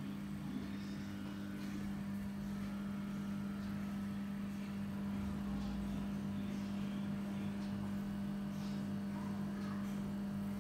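Pensonic stand fan running, its motor giving a steady low hum over the even rush of air from the blades.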